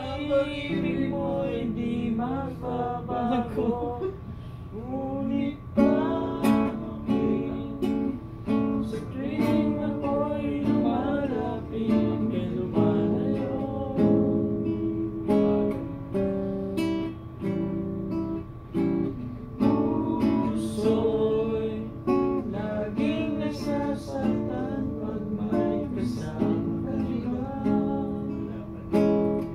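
Acoustic guitar strummed and picked, with singing over it.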